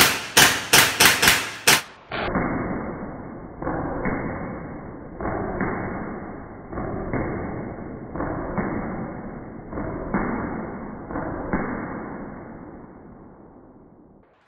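A quick string of paintball marker shots hitting a target, about three a second for the first two seconds. The same shots then play slowed down as deep, drawn-out thuds about every second and a half, which fade away near the end.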